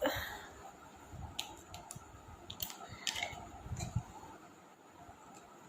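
A brief louder sound fades out at the very start, then come a few faint clicks and soft taps of handling noise.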